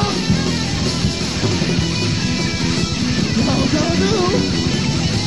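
A loud rock band plays punk/heavy-metal music led by electric guitar, in an instrumental stretch without vocals. A few bent guitar notes come in about three and a half seconds in.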